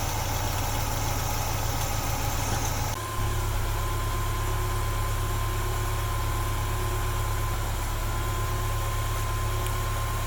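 1989 Mazda B2200's carbureted 2.2-litre four-cylinder engine idling steadily on its first run after a head gasket replacement, running smooth. About three seconds in the sound briefly dips and its higher tones change, then the idle carries on evenly.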